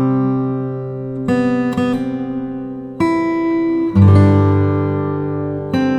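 Background music: acoustic guitar strumming chords, with a new chord struck every one to two seconds.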